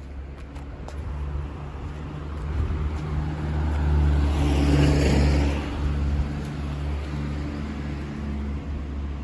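A motor vehicle passing by off-screen: a low engine hum and tyre noise that grow louder to a peak about halfway through, then fade.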